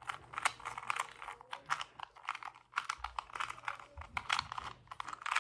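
2x2 Rubik's cube being turned quickly in the hands while the last (yellow) layer is solved: rapid, irregular plastic clicks and clacks of the layers snapping round, several a second.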